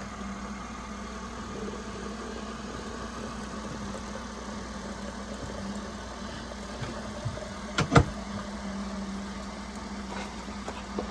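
An engine running steadily with a low hum, broken by a few sharp knocks, the loudest about eight seconds in.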